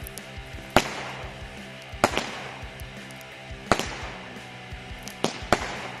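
Consumer fireworks bursting overhead: about six sharp bangs at uneven intervals, two of them in quick pairs.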